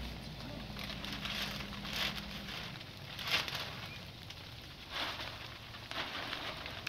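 Rain falling and an open fire crackling, with a few sharp pops standing out.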